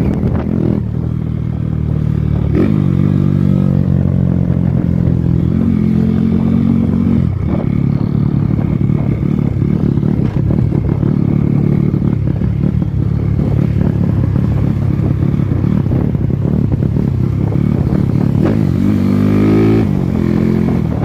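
Honda CG Titan's single-cylinder four-stroke engine running under way, its revs rising and dropping back a few times as the bike pulls away and changes pace. The engine is freshly rebuilt and still being run in, and the rider says it is running rich.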